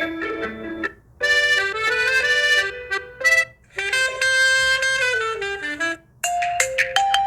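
Huawei P10 lite ringtones playing: short electronic melodic phrases separated by brief pauses, a new phrase starting every two to three seconds.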